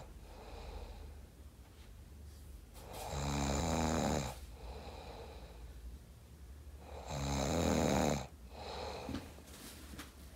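A sleeping teenage boy snoring: two loud snores about four seconds apart, each followed by a softer breath out.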